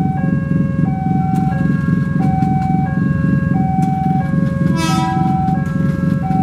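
Railway level-crossing warning alarm sounding its two alternating tones, switching about every two-thirds of a second, over the low rumble of idling motorcycle engines. A short, buzzy horn beep sounds about five seconds in.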